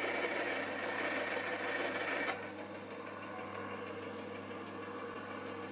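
Full Boar band saw cutting a thin, veneer-thin strip off a board run against the fence. The cutting noise stops suddenly a little over two seconds in, as the cut finishes, and the saw then runs free with a steady motor hum.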